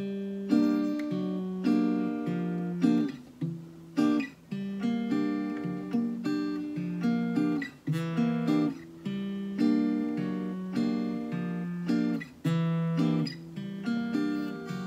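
Acoustic guitar playing a Latin-style cliché pattern: a repeating, syncopated figure of bass notes and picked chords with a moving inner line, each strike sharp and ringing.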